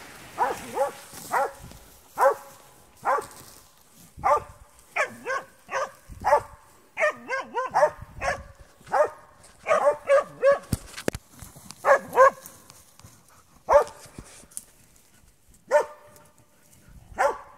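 Spitz hunting dog barking repeatedly, singly and in quick runs of two or three with short gaps, baying at a badger to hold it.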